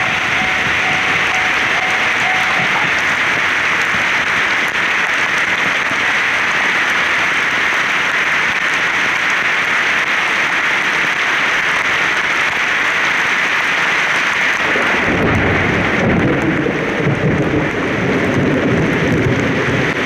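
Torrential rain falling in a thunderstorm, a dense, steady hiss. About fifteen seconds in, a low rolling rumble of thunder joins it.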